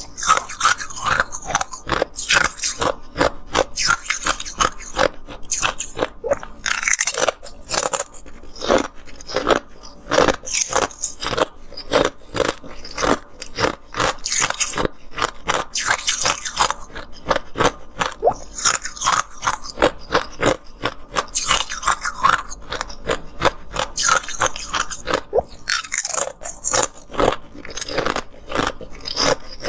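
Clear moulded ice being bitten and chewed close to the microphone: sharp crunches come in quick succession, with short pauses between bites.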